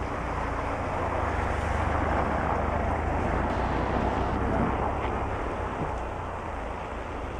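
Vehicle engine running with a steady low hum, under a rushing noise that swells over the first few seconds and then eases off.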